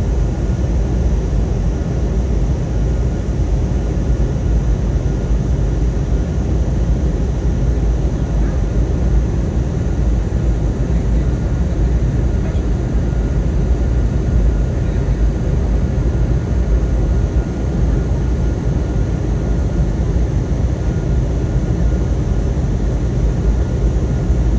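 Steady drone of an airplane cabin in flight, engine and air noise with a low rumble and faint steady hums, unchanging throughout.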